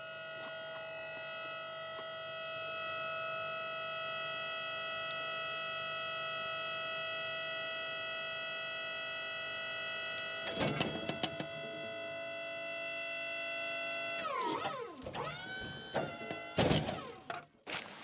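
Wood-Mizer LT40 sawmill's hydraulic log loader running with a steady whine as it lifts a pine log, with a few knocks about ten seconds in. Near the end the whine dips and rises in pitch several times as the log rolls onto the mill bed and the hydraulics take and release the load.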